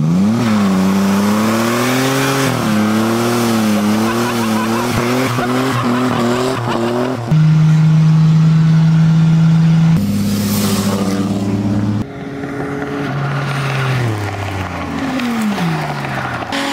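Car engine revving up and down repeatedly. About halfway through it holds one steady pitch for a few seconds, the sound changes abruptly a few times, and near the end the pitch falls as the revs drop.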